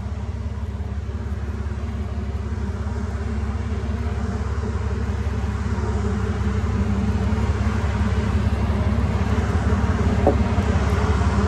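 An engine idling steadily, its low hum getting gradually louder, with a single short click about ten seconds in.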